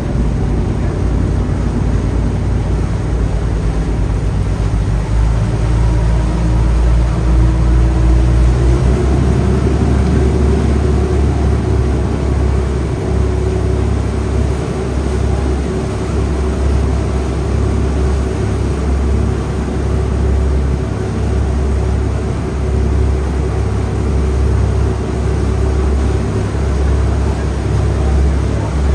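River ferry's engines running steadily, heard on board as a loud, dense low rumble. A humming drone climbs in pitch over the first nine seconds or so and then holds steady, as the engines speed up.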